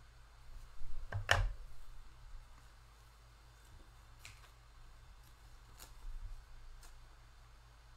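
Trading cards being handled and flipped through by hand: a few short scrapes and clicks, the loudest about a second in.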